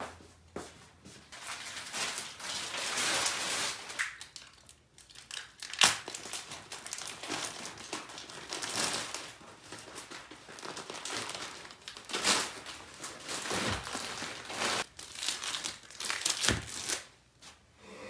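Clear plastic wrapping crinkling and tape tearing as a rolled carpet is unwrapped by hand, in irregular rustling bursts with a few sharp snaps.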